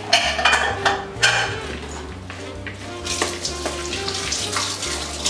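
Wooden spoon stirring a thick spinach and mascarpone stuffing in a mixing bowl, with a few quick scraping strokes in the first second and a half. About three seconds in, a steady hiss rises under softer stirring.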